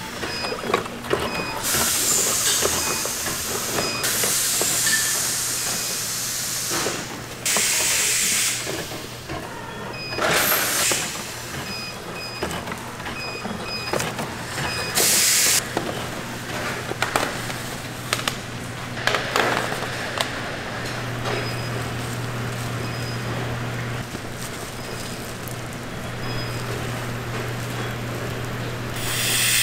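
Nurungji chip factory machinery: a steady machine hum with several sharp hissing bursts a few seconds apart, plus faint regular ticking.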